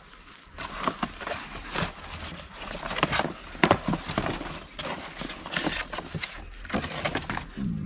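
Cardboard box and metal detector parts being handled during unpacking: cardboard rustling and scraping, with irregular knocks and clicks as pieces are lifted out.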